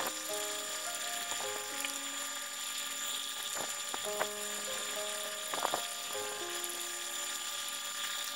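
Background music: a slow melody of held notes stepping from pitch to pitch, over a faint steady hiss.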